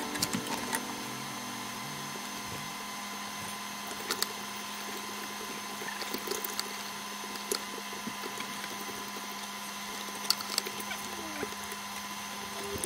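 Scattered light clicks and knocks of parts being handled in a Honda Civic's stripped dashboard, over a steady low hum.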